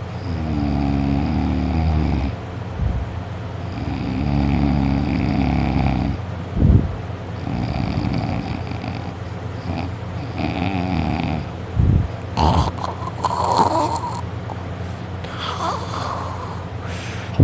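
A person snoring loudly in deep sleep: long, rumbling, rattling snores that repeat every three to four seconds, followed near the end by a few shorter, noisier breaths or movements.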